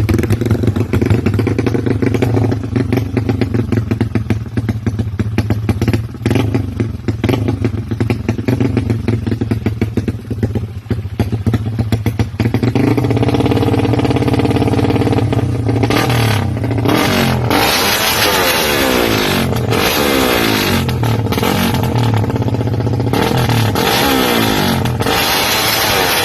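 Exhaust of a Honda XRM 125 single-cylinder four-stroke with a 4-valve head and a Manoch Thailand pipe. It idles with a rapid, uneven pulse, then from about halfway is revved up and down repeatedly, the pitch rising and falling with each blip.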